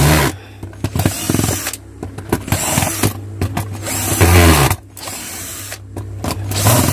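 Cordless drill-driver unscrewing the housing screws of an old drill, its motor whirring in several short bursts that each wind up and then die away.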